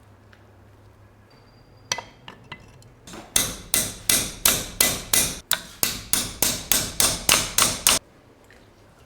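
Hammer striking metal during the restoration of a rusty pistol: one blow and a few light taps, then a rapid even run of about eighteen blows, roughly four a second, each ringing briefly.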